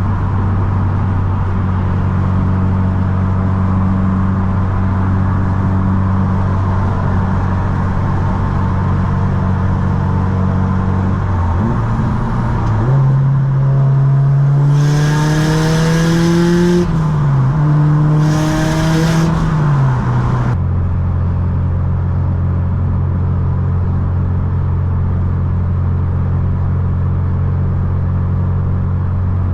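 Subaru STI's turbocharged flat-four engine cruising at a steady drone, then accelerating hard through two gears in the middle, with a hiss riding over the engine during each pull. It then settles back to a steady cruise.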